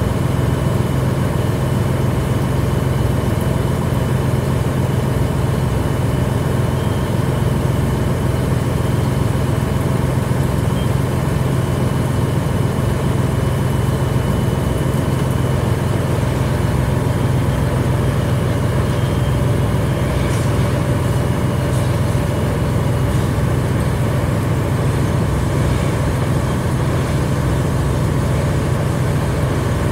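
Fire engine's diesel engine running steadily at the hydrant-supplied fireground, driving its pump to supply the charged hose lines; a loud, even low hum that does not change.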